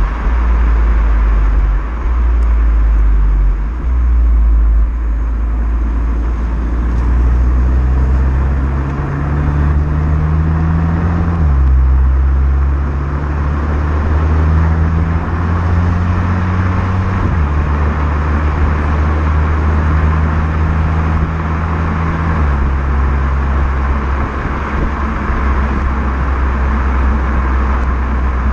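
Renault Mégane GT's stock exhaust and 1.6 TCe turbocharged four-cylinder engine running under way in Neutral drive mode. The engine note climbs gently and drops sharply three times, as at gear changes.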